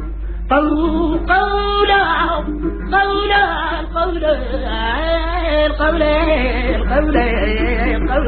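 Middle Eastern-style music: an ornamented melody line that wavers and slides in pitch through long held notes, with a short break just after the start.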